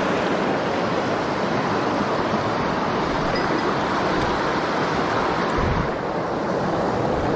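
Mountain stream rushing over rocks: a steady wash of flowing water.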